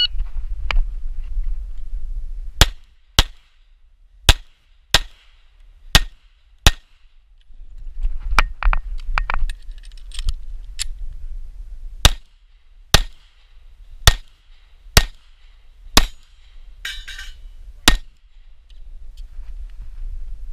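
Glock 43 9mm subcompact pistol firing a course of fire: about fifteen sharp shots, singly and in quick pairs roughly a second apart. A few-second spell of handling and movement noise comes in the middle.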